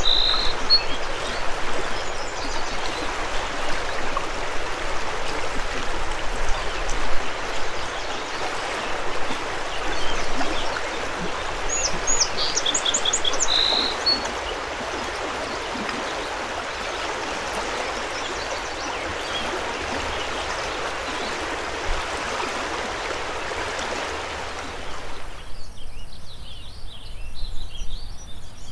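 Steady rush of a mountain river, with a songbird singing a short trilled phrase at the start and again about halfway. Near the end the river sound cuts off suddenly, leaving a quieter forest with many small birds chirping.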